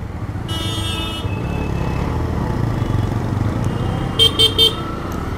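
Vehicle horns on a road: a held horn tone about half a second in, then three short, quick beeps near the end, over a steady low rumble of riding and traffic.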